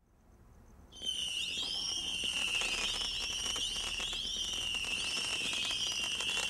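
Multishot fireworks cake firing a rapid stream of whistling penlids. It starts about a second in, and from then on many overlapping shrill whistles sound continuously, with repeated rising glides, along with dense crackling and pops.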